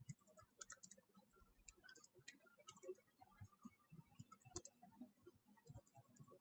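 Near silence with faint, irregular clicks of a computer keyboard and mouse, a slightly louder click about four and a half seconds in.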